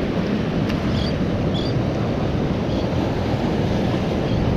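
Strong wind rumbling on the microphone, with surf washing against the jetty's rock revetment.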